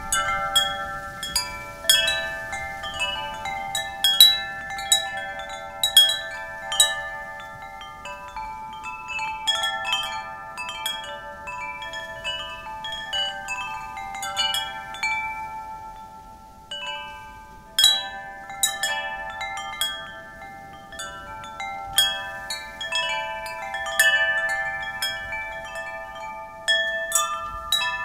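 Metal wind chimes ringing as the wind sways them: irregular clusters of clear, overlapping tones that strike and ring on, with a few louder strikes and a brief lull about halfway through. A faint wind hiss runs underneath.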